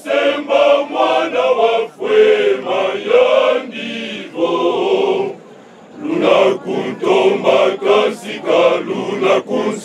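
Men of a church choir singing together into a microphone, with a short pause in the singing about five and a half seconds in.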